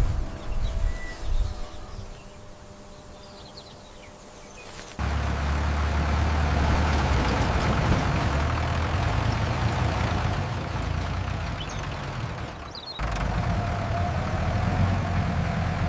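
A large engine running steadily with a low rumble. It is quieter at first, then jumps abruptly louder about five seconds in, and changes again about thirteen seconds in, when a steady whine joins it.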